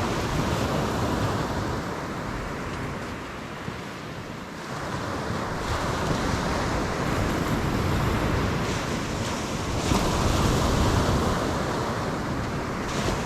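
Ocean surf washing onto the beach, its level rising and falling as the waves come in, with wind rumbling on the microphone.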